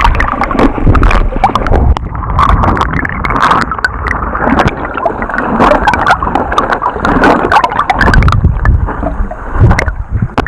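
Loud water splashing and sloshing close to the microphone, full of sharp clicks and a heavy low rumble.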